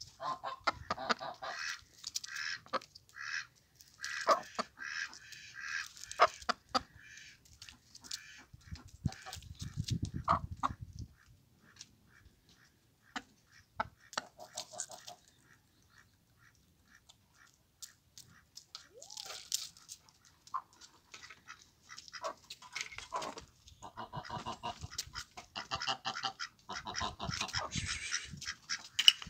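Chickens calling with repeated short, harsh squawks and clucks, in clusters with a quieter gap in the middle.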